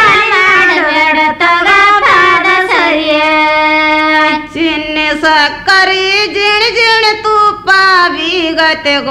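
Women singing a Kannada folk wedding song (shobhana pada), the voices gliding between notes, with a long held note about three seconds in.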